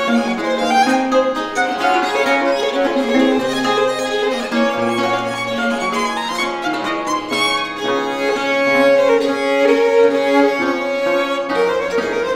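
A violin bowed through a flowing melody of changing sustained notes, with a lute playing low bass notes beneath it, as a violin-and-lute duo rehearses.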